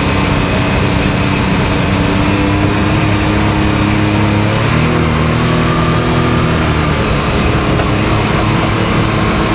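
Can-Am Maverick X3's turbocharged three-cylinder engine running while the side-by-side is driven along the trail; the engine pitch rises about halfway through, then settles again.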